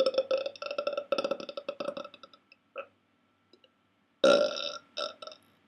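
A man's long, drawn-out belch with a fast rattle running through it, fading out about two seconds in. A short burp and then two more short, loud burps follow near the end.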